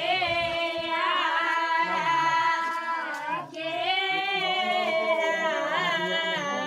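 A group of women singing a traditional ritual folk song together, unaccompanied, in long drawn-out phrases, with a short breath break about halfway through.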